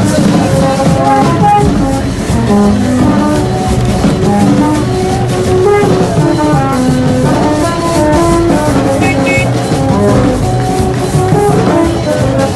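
Loud music with drums and horns playing held notes over a steady beat.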